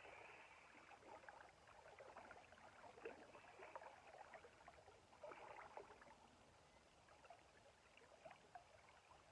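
Faint river water lapping and trickling, with small irregular splashes.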